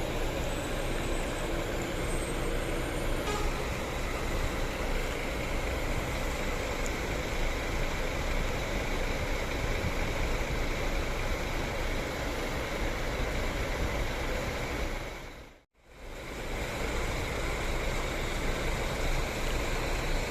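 Steady running of departing diesel buses and road traffic, a continuous rumble and hiss. The sound drops out completely for a moment about three-quarters of the way through, then resumes unchanged.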